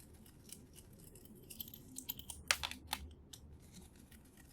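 Light clicking and scraping of small metal parts as a bracket is worked off a boombox's small electric motor, with a couple of sharper clicks about two and a half and three seconds in.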